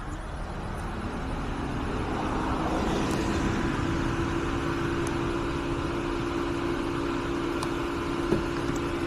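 Electric motor of a key cutting machine spinning up over the first few seconds, its hum rising in pitch, then running at a steady speed.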